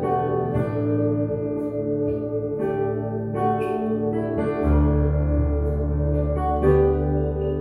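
Electronic keyboard played with both hands: sustained chords in D that change every second or two, with a deep bass note coming in a little past halfway.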